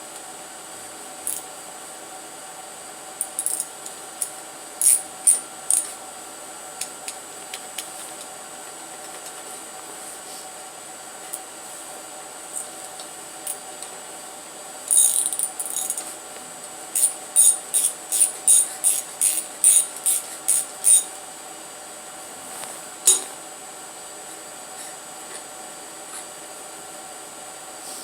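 Socket ratchet clicking in short runs of sharp metal clicks, a few a second, while a spark plug is turned out of a slant-six engine's cylinder head. A steady hum runs underneath.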